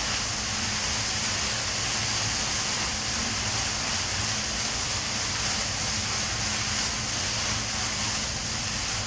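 Stir-fried chicken and vegetables sizzling steadily in a hot pan with oil and sauce.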